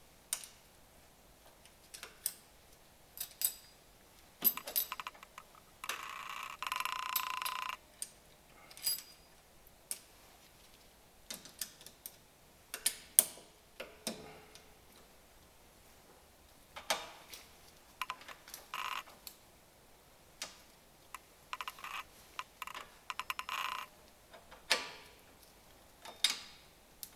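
Hand tools and metal brake parts clicking and clinking at irregular intervals during a drum-brake wheel cylinder replacement, with one louder stretch of steady noise lasting about two seconds about six seconds in.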